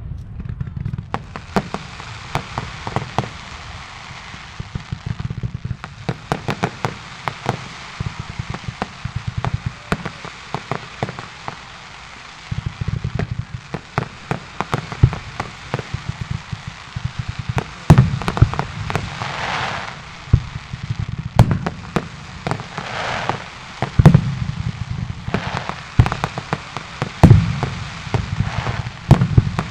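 Fireworks display: many sharp bangs over a continuous crackle, with the loudest booms coming in the second half.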